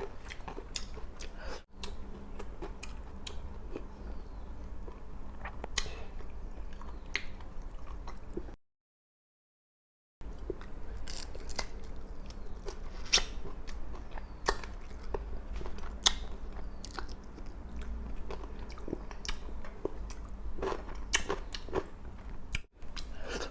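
Close-miked chewing and biting of food, with many irregular crisp crunches and wet mouth clicks. The sound cuts out to dead silence briefly near the middle.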